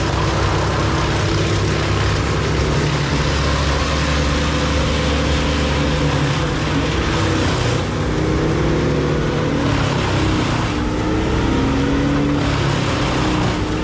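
A heavy machine's engine running steadily and loudly, its pitch drifting up and down a little.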